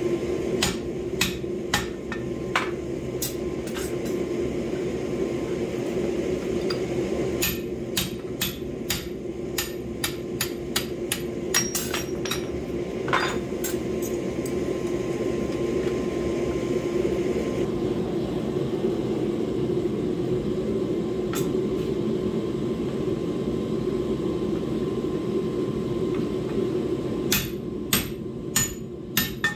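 Hand hammer striking a drift set in the eye of a red-hot steel hatchet head held in a vise, opening the eye. Sharp ringing blows come in bursts, at times about two a second, with pauses between, over a steady low drone.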